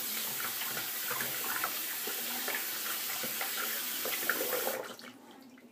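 Water running from a bathroom sink tap as hands are rinsed under it, then shut off suddenly about five seconds in.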